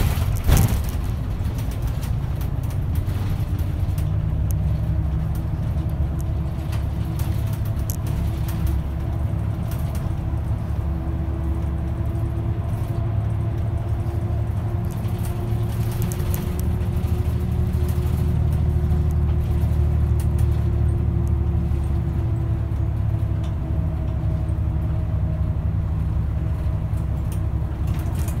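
A bus running along the road, heard from inside: a steady low rumble of engine and tyres with a drivetrain whine that slowly rises and falls as speed changes. A sharp knock comes right at the start.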